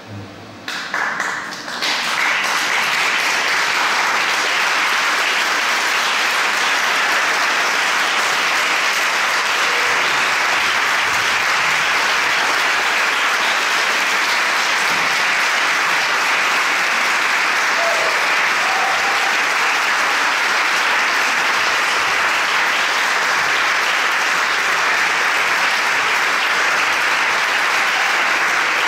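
Theatre audience applauding: the clapping breaks out about a second in, quickly swells and then holds as a steady, dense applause.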